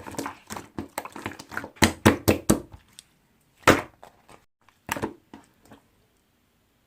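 Slime being squeezed and poked by hand, giving a quick irregular run of sharp wet pops and clicks that thins out and stops about six seconds in.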